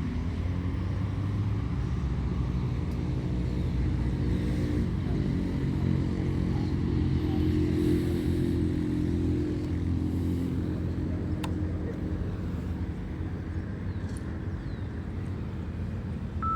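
Yamaha MT-09 (FZ-09) three-cylinder engine running at a steady idle through an open Akrapovic full titanium exhaust with the dB killer removed. The engine rises a little around the middle, then settles back.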